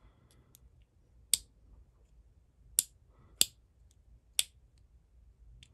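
Sharp metal clicks from a two-stroke carburetor's throttle butterfly assembly being reseated with a screwdriver: four loud clicks at irregular intervals with fainter ticks between.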